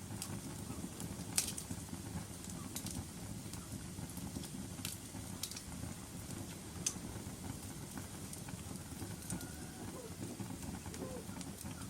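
Wood fire burning in a fireplace: a steady low rumble of flames with sharp crackles and pops every second or so, the loudest about a second and a half in.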